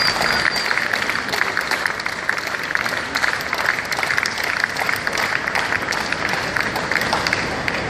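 Audience applauding: steady, continuous clapping from many spectators.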